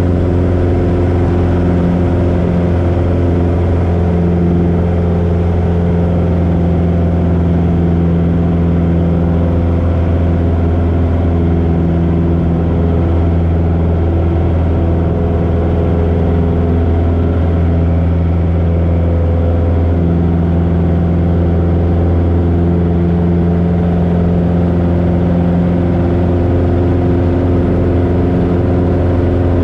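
1968 Cessna 150J's four-cylinder Continental O-200 engine and two-blade propeller running steadily in flight: a constant, loud, low drone.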